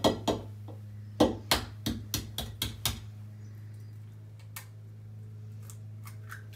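An egg being knocked against the rim of a mixing bowl to crack it: about ten sharp taps in the first three seconds, then a few faint clicks as the shell is pulled apart.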